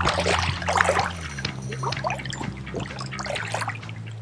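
Water splashing and gurgling as a hooked fish thrashes at the surface of the creek, busiest in the first second or so, over the steady sound of the flowing stream.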